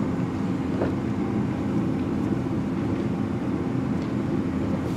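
Steady low mechanical drone of running shop machinery, with a couple of faint light clicks about a second in and again near four seconds.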